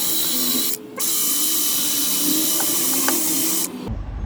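Handheld power tool run against metal in two bursts, a short one and then one of about three seconds, with a harsh hiss; it stops shortly before the end.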